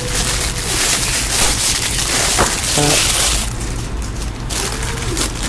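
Clear cellophane gift wrap crinkling and crackling as it is handled, loudest in the first three and a half seconds, then quieter.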